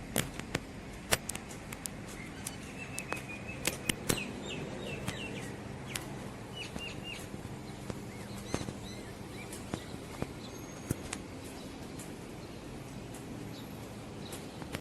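Small birds chirping in short quick notes, mostly in the first half, over a steady low hum, with scattered sharp clicks throughout.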